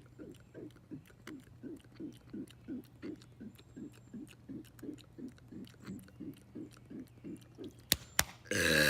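A man making soft, low gulping sounds in an even rhythm, about three a second. Near the end come two sharp clicks, and then a loud burp starts.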